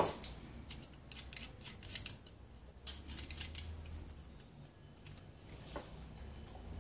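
Small metal clicks and light clinks from a homemade steel pulley puller and its threaded rod being handled over a stepper motor, with a sharper clunk right at the start.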